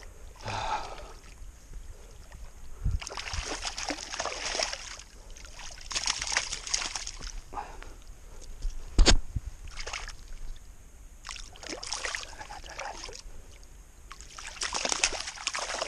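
Water splashing and sloshing in several short bursts, with one sharp knock about nine seconds in.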